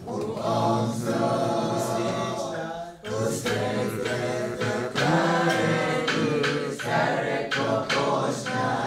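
A group of voices singing unaccompanied, with a short pause about three seconds in.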